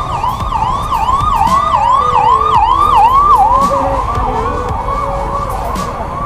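An emergency vehicle's siren in a fast yelp, sweeping up and down about three times a second, growing louder over the first three seconds and then fading, over the low rumble of road traffic.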